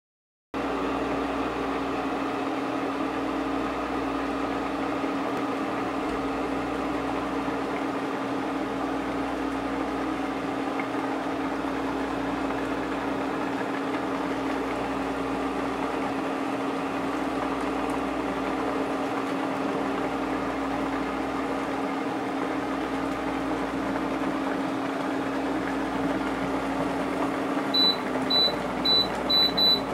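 Infrared cooktop running under a lidded pot with a steady hum and a low pulse about every three seconds. Near the end come about five short, high beeps from its touch buttons as the power setting is lowered from 2200 W to 2000 W.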